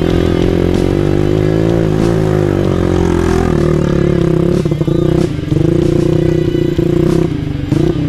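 Trail motorcycle engine with an aftermarket Norifumi exhaust, ridden along a dirt trail, its revs rising and falling with the throttle. The throttle eases off briefly twice in the second half.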